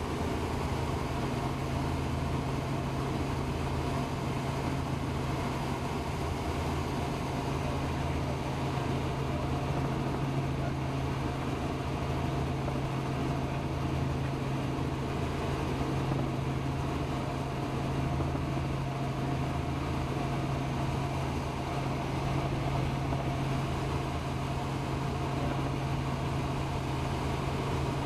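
Helicopter in cruising flight heard from inside the cabin: a steady drone of engine and rotor with a strong constant hum and a low throb underneath.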